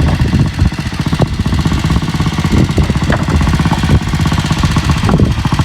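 Motorcycle engine of a homemade Troy cart running with a fast, even chugging beat, with a few short knocks over it.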